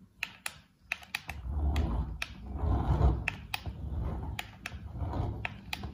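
Handling noise: scattered light clicks and knocks over a low rumble.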